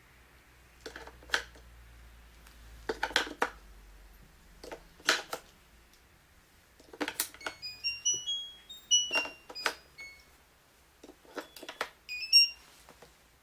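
Batteries clicking one by one into the battery holder of a Samsung SHS-5230 digital door lock, then the lock sounding a short run of electronic beeps rising in pitch as it gets power. A few more beeps fall in pitch a couple of seconds later, and a last cluster of beeps comes near the end.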